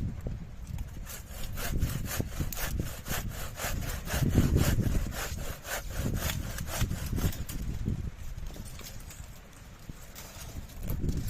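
A hand saw cutting wood with rapid, even back-and-forth strokes, which stop about eight seconds in. Wind rumbles on the microphone underneath.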